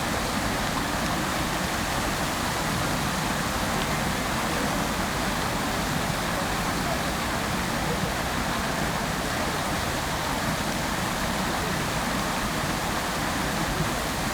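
Water fountain running: a steady, even rush of falling and splashing water.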